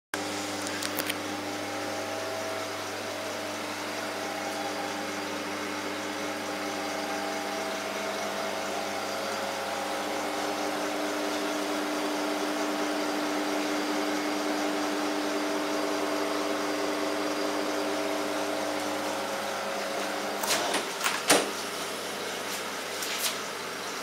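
Stainless steel two-door commercial refrigerator running: a steady mechanical hum with a few steady tones over it, from its compressor and fans. Near the end, a few sharp clunks as the doors are opened.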